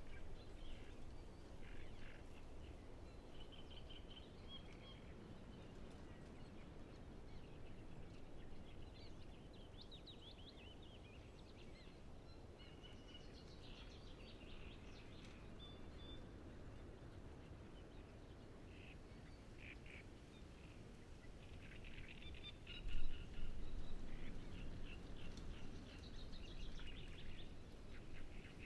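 Several great reed warblers singing, in phrases of repeated short notes that come and go, over a steady low background rumble. A brief, louder low rumble comes about two-thirds of the way through.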